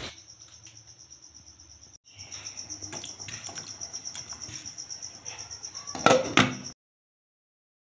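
A high, steady pulsing trill, like a cricket, runs through the background, with a short break about two seconds in. About six seconds in, a glass lid clatters onto the cooking pot, the loudest sound, and then everything cuts off suddenly.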